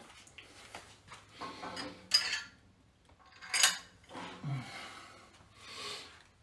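Metal clinks and clatter from a cable machine's weight stack and cable hardware during tricep pushdown reps. There are a handful of sharp clinks, the loudest about three and a half seconds in.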